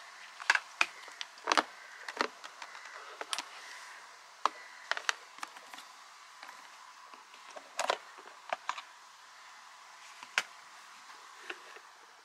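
Plastic lunch box being opened and handled: an irregular string of sharp clicks and knocks as the lid's latch buttons are pressed, the lid lifted off and the plastic containers set down.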